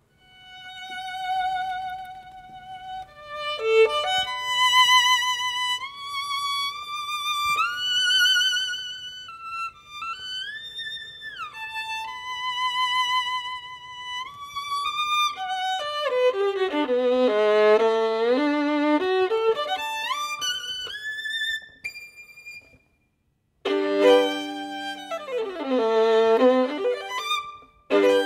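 Solo violin playing with a wide vibrato: held notes that climb into the high register, then fast sweeping runs down and back up. It stops briefly about three-quarters of the way through, then more rapid runs follow.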